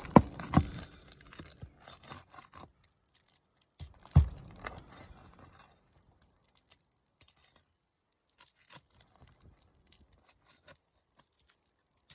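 Roofing nails being pried out from under asphalt shingles with a hand tool: a few sharp knocks, the loudest about a quarter second in and another about four seconds in, with scraping and tearing of the shingle. The second half holds only scattered faint clicks.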